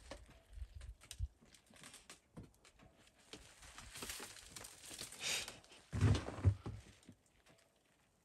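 Snow-laden spruce branches being shaken by hand, the needles rustling and loose snow sifting down in a soft hiss that builds and fades, with a few low thumps about six seconds in.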